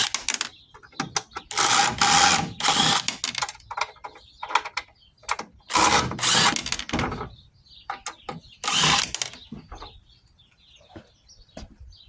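Swapping the bit in a drill: clattering and ratcheting clicks of a drill chuck being opened and tightened and bits being handled, broken by several loud noisy bursts of a second or so. Faint bird chirps come in near the end.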